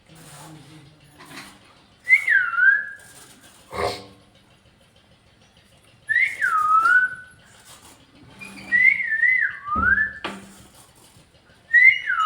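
A pet parrot making four whistle-like calls, each one dropping in pitch and then holding level. The third call wavers up and down before it drops.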